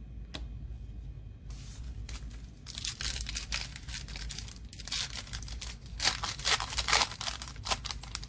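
Foil trading-card pack wrapper crinkling and tearing in rapid crackles, starting about a second and a half in and loudest from about three seconds in until near the end.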